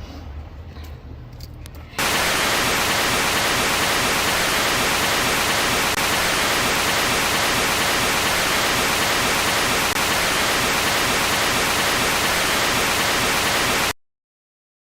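Loud, even hiss of static noise, like white noise, that switches on abruptly about two seconds in and cuts off abruptly near the end.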